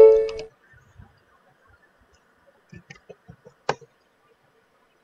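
The NVDA screen reader's exit chime, a short descending run of electronic tones, dying away in the first half second. A few faint clicks follow about three seconds in, the sharpest a little before four seconds.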